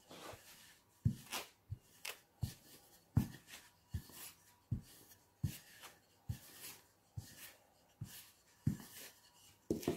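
Wooden rolling pin rolling risen yeast dough back and forth on a floured wooden board. Each stroke gives a soft thud with a brief rubbing sound, about one and a half strokes a second and even in rhythm.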